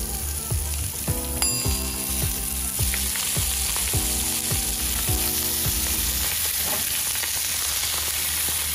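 Seasoned skin-on chicken thighs sizzling in hot avocado oil in a cast iron skillet as they are laid in one after another. Over the first six seconds or so, a few ringing musical notes sound over the sizzle, then only the steady sizzle goes on.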